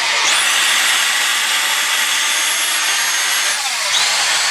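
Dyson V6 cordless vacuum running with a rush of air and a high motor whine. The whine climbs to a steady high pitch just after the start, winds down about three and a half seconds in, then briefly spins up again to a lower pitch near the end. The vacuum is being run as a suction test after its cyclone and filter were cleaned.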